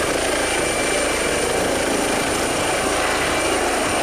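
Helicopter rotor sound for a toy helicopter: a steady, continuous whirring chop at an even loudness throughout.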